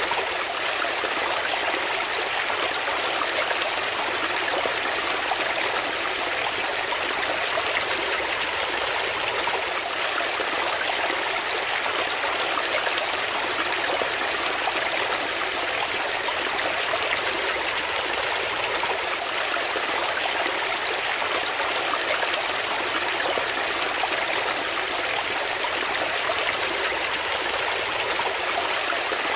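Shallow brook water running and splashing over rocks: a steady, unbroken rush that is mostly high and hissy, with little deep rumble.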